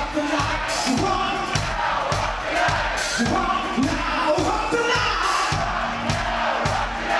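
A hard rock band playing live and loud, a steady drum beat under the amplified band and singer, with crowd voices along with it.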